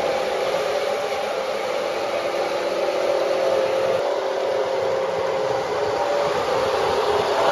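Lionel 2373 Canadian Pacific O-gauge model train running steadily around three-rail track: a continuous whir of its electric motors and gearing with the rumble of its wheels on the rails as it passes by.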